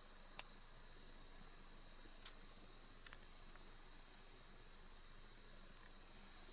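A steady, high-pitched insect chorus with a continuous trill and short repeated chirps above it, faint overall, with a few faint clicks about half a second and two seconds in.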